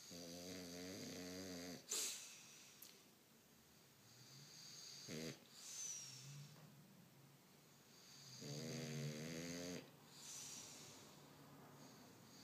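English Bulldog snoring in deep sleep: two long snores with a wavering pitch, each about a second and a half, the first followed by a short sharp snort, with quieter breaths between.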